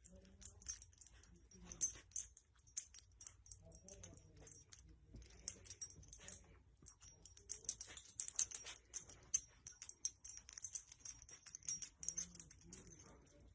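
A puppy moving about: faint, irregular jingling with scattered small clicks and taps.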